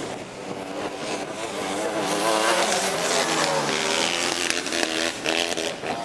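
Engines of small Racer 250 autocross buggies revving hard, their pitch rising and falling with throttle and gear changes as they race around the dirt track. The sound swells about two seconds in and eases near the end.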